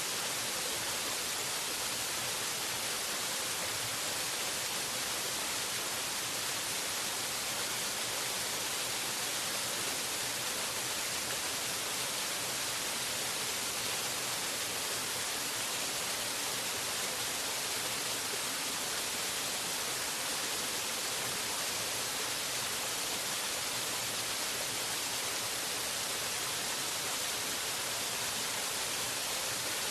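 Waterfall: falling water rushing steadily in an even, bright hiss, with no single splash or change standing out.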